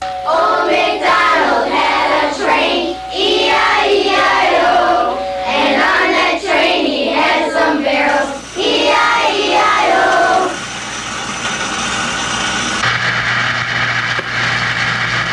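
Song with children singing over music, giving way about ten seconds in to instrumental music with held notes.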